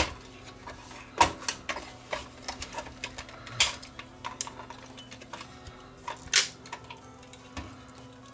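Irregular clicks and knocks of a screwdriver and small metal parts as the transport deck is unscrewed and lifted out of a DAT recorder's chassis. The loudest clanks come about a second in, midway, and a little after six seconds.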